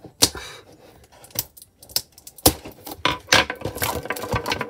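Plastic shrink-wrap crinkling and crackling as it is pulled off a cardboard box, mixed with a knife rolling around and clattering in a quick irregular run of sharp clicks.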